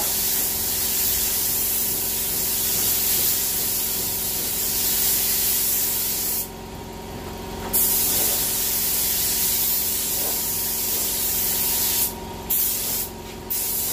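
Compressed-air paint spray gun hissing as a third coat of NC (nitrocellulose) paint is sprayed on. The trigger is released for about a second midway and briefly twice near the end.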